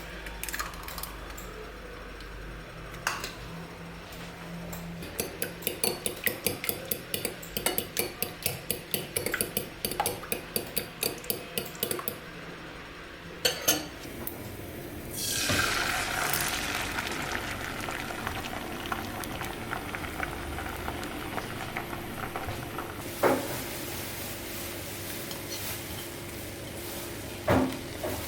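Eggs beaten with a fork against a bowl, about three quick clinks a second for several seconds. About halfway through, the eggs go into a hot pan and start sizzling, a hiss that begins suddenly and slowly dies down, with a couple of knocks of utensil on pan.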